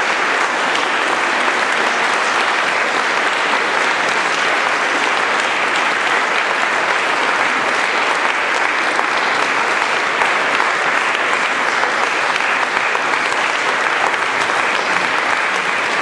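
Audience applauding steadily, a long unbroken round of clapping.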